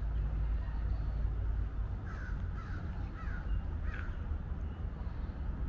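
A crow cawing four times in quick succession, about two seconds in, over a steady low outdoor rumble.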